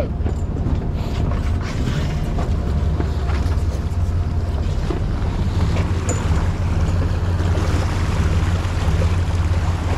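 Charter fishing boat's engine running with a steady low rumble, with sea water washing and churning along the hull and wind buffeting the microphone.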